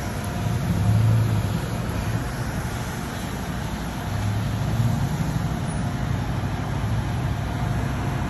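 Car running and rolling slowly, heard from inside the car as a steady low rumble that swells briefly about a second in and again around five seconds in.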